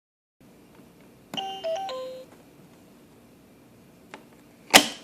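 LeapFrog Fridge Phonics toy playing a short electronic jingle of a few stepping notes, then a loud sharp plastic click near the end.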